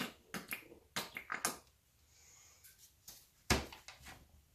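Plastic squeeze bottle of acrylic paint being handled over a canvas: a quick run of sharp clicks and knocks in the first second and a half, then one louder thump about three and a half seconds in.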